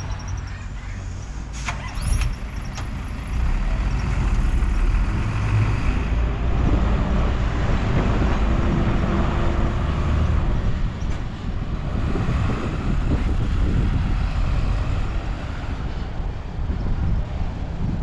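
Heavy diesel earthmoving machinery running with a steady low rumble that grows louder about three seconds in, with a brief sharp clatter about two seconds in.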